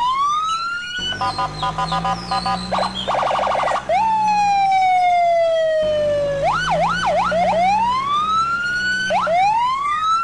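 Electronic police siren sound that cycles through several patterns: rising wails, a choppy pulsing tone, one long falling tone in the middle, a few quick yelps, then more rising wails.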